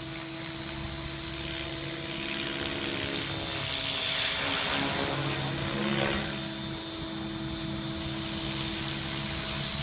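Remote-control helicopter flying: its motor whine and rotor buzz hold steady, swelling louder as it passes close about four to six seconds in, then easing off.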